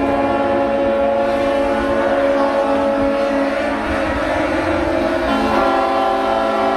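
Many yacht horns sounding at once in a sustained, overlapping chorus of steady tones, the show's closing horn salute; the mix of pitches shifts about five seconds in.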